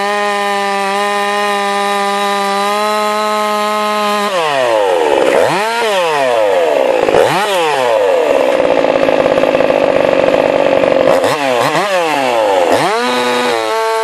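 Jonsered 2153 two-stroke chainsaw idling steadily, then revved in several quick throttle blips about four seconds in. It is held at high revs for about three seconds, blipped twice more and drops back to idle near the end.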